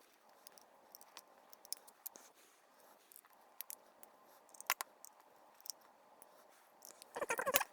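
Faint scattered clicks and small taps of tiny parts and a small tool being handled during an iPod teardown, with a brief louder bout of handling near the end.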